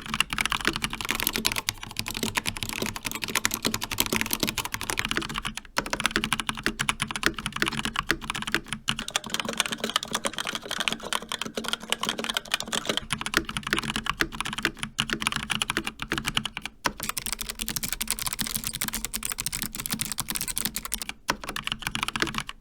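Fast continuous typing on a run of mechanical keyboards. It starts on a Corsair K70 Pro Mini Wireless with linear Cherry MX Red switches, changes about eight seconds later to a Razer Pro Type with tactile Razer Orange switches, and about sixteen seconds in to a Logitech G915 with GL Clicky switches.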